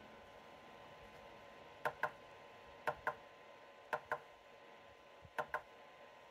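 The plastic lighting button on an IETS GT300 laptop cooling pad's front panel is pressed four times, about once a second, to cycle its LED colours. Each press gives a quick pair of clicks. A faint steady hum runs underneath.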